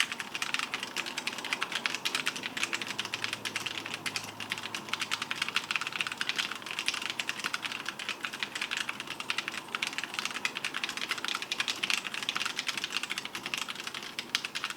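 Fast, continuous typing on a mechanical keyboard: a dense, even stream of key clicks and clacks with no pauses.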